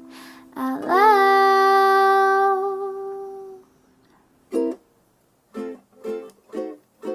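Song: a voice holds one long sung note that swoops up at its start and then fades. After a short pause, strummed ukulele chords come back in at about two a second.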